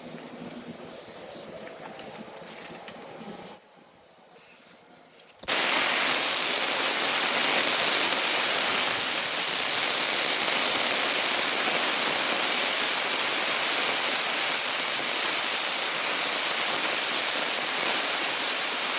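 Heavy rain pouring down, a loud steady hiss that starts suddenly about five seconds in, after a few seconds of fainter sound.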